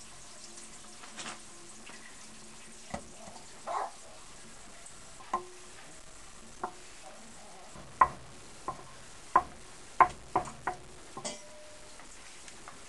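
Wooden butter paddle patting and pressing freshly churned butter on a board, working out the rinse water. It makes irregular wet pats and light knocks, sparse at first and coming quickly one after another in the second half.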